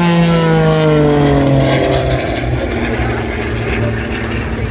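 Propeller engine of an MXS-RH aerobatic plane passing by. Its drone falls in pitch over the first two seconds as it goes past, then carries on lower and steadier, slowly fading.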